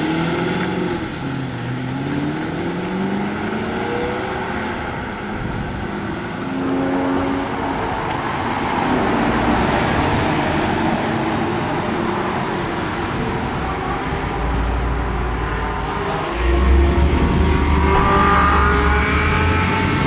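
Audi R8's 4.2-litre FSI V8 accelerating, its pitch climbing, dropping briefly about a second in, then climbing again. The car then passes close by in a broad rush of engine and exhaust noise. After that it runs at low revs as a deep rumble that gets louder near the end.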